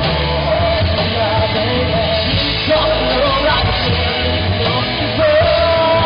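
Live rock band playing loud: electric guitars, bass guitar and a drum kit, with a singer's voice over them.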